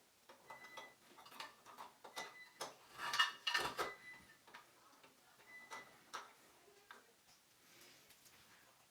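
Plastic parts of a Moen shower valve's handle assembly clicking and knocking as they are fitted onto the valve and adjusted: irregular sharp clicks, with a louder cluster a little past three seconds in.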